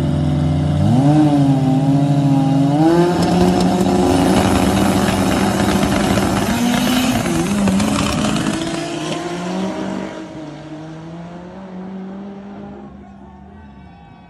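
V8 engine of a Chevrolet Opala drag car held at high revs, then rising in pitch as the car launches and accelerates hard down the strip. Its noise swells and then fades away as it pulls into the distance.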